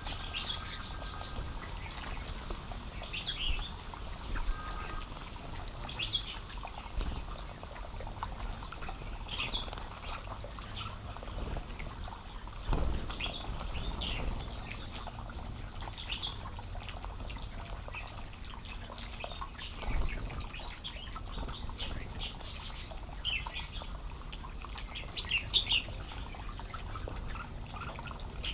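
Bulbuls giving short, high chirping calls every second or two, with splashing from a red-whiskered bulbul bathing in a shallow pond; a few louder splashes stand out, about halfway through and near the end.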